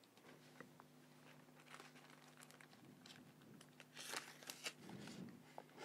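Faint crinkling of a clear plastic binder pocket page being turned, about four seconds in, after a few faint ticks.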